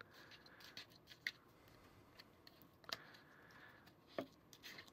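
Faint clicks and scrapes of a plastic drinking straw digging Play-Doh out of the groove of a plastic Play-Doh extruder tube, a few separate ticks over near silence.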